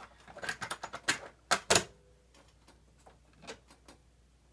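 Plastic clicks and clatter of a cassette tape being fitted into the tape compartment of a Concord F-105 cassette recorder: a quick run of sharp clicks in the first two seconds, then a couple of faint clicks as fingers go to the keys.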